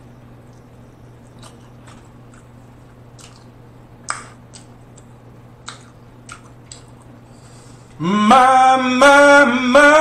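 Close-miked eating sounds from fried chicken: quiet chewing with scattered wet mouth clicks and smacks. About eight seconds in, a man's voice breaks into loud singing, long held notes stepping up and down.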